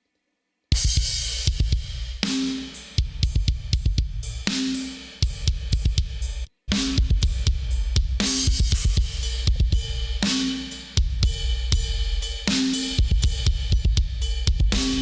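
BFD3 sampled acoustic drum kit playing a groove of kick, snare, hi-hat and cymbals, processed through a compressor and tape emulation. It starts about a second in, cuts out for a moment just after the halfway point, and comes straight back in.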